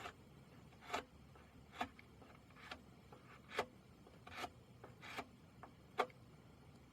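Hand-finishing strokes scraping over carved wood, eight short strokes at a steady pace of a little over one a second.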